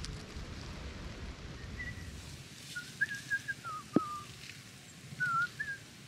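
Short, wavering whistled notes in several small groups, with a sharp click about four seconds in; a low rumble of noise fades out before the whistles start.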